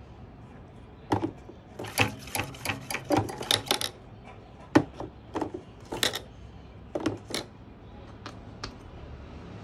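Dry-cell batteries clicking and knocking against each other and against the plastic case as they are handled and dropped into a transistor radio's round battery compartment: a quick run of sharp clicks a couple of seconds in, then single knocks every second or so.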